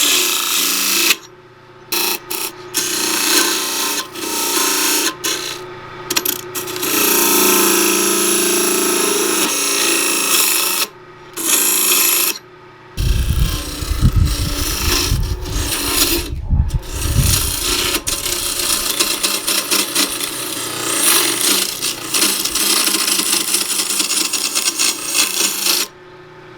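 A turning gouge cuts into a spinning cedar block on a wood lathe, a rough scraping hiss that stops and starts as the tool is lifted off and pushed back in, shaping a spigot for the chuck jaws to grip. A low rumble joins about halfway through.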